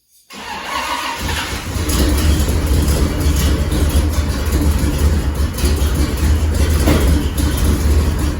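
A 454 big-block V8 cranks and catches about a second in, then runs loud and steady with a deep low rumble. Its leaking exhaust has just been welded up.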